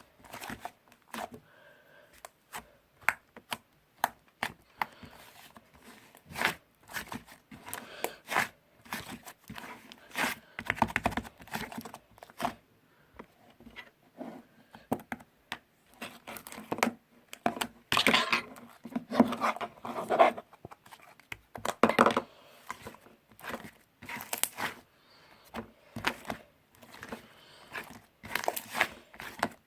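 Irregular crinkling, crackling and tearing, with many sharp clicks and denser, louder stretches about two-thirds of the way through.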